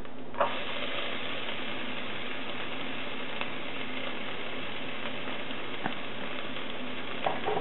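Chopped onion sizzling steadily in hot oil with whole spices, frying from the moment it goes into the pot about a third of a second in.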